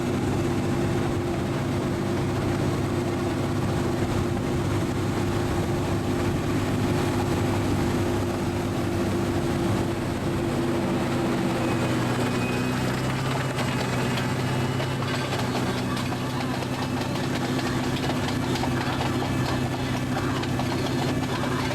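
Motor of an amusement ride vehicle running steadily, a low hum of several tones that shifts in pitch about halfway through.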